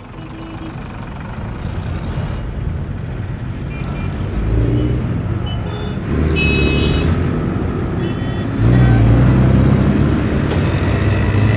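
Loud road-traffic noise that keeps building, with a low rumble, a few short beeping tones in the middle, and a sudden jump in loudness about three-quarters of the way through.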